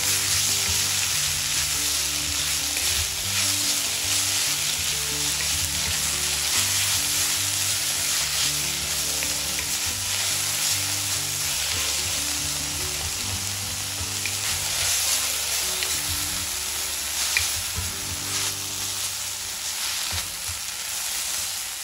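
Moringa leaves sizzling in oil in a hot wok while a wooden spatula stirs them, a steady hiss with a few light scrapes and taps of the spatula on the pan.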